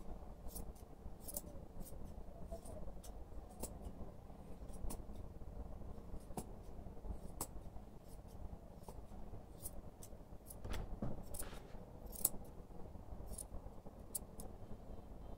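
Steel grooming scissors snipping through a poodle's curly coat: a string of crisp, irregularly spaced snips with short pauses between clusters.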